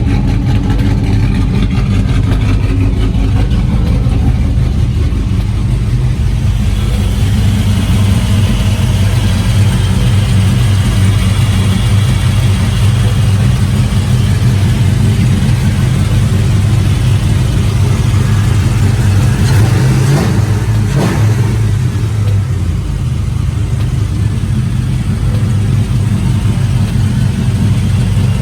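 The LS-swapped Chevy truck's V8 idling steadily, just started after a burned-through part lying on the exhaust manifold was moved clear to cure a misfire. A brief clatter comes about twenty seconds in.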